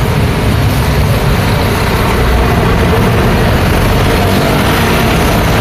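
Road traffic on a busy street: a steady mix of car, truck and motorbike engines and tyre noise, heavy in the low end, with no single vehicle standing out.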